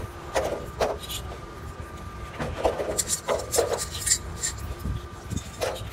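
Hands rubbing and scraping gray paste on small metal oil-filter end caps: a series of short scrapes, some with a light metallic rasp. A steady low hum and a faint steady whine run underneath.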